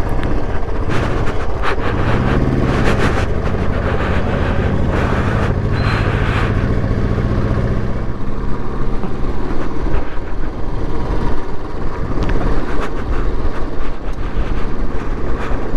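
Motorcycle engine running steadily on a rough unpaved track, its pitch rising a little about two seconds in, with a constant rush of wind on the microphone and scattered knocks from the bumpy surface.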